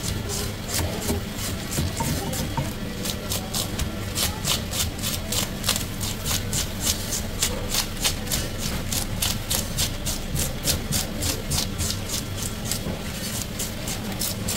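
Plastic fish scaler raked quickly over an Asian sea bass on a wooden chopping block, scraping off the scales in rapid repeated strokes, about three a second.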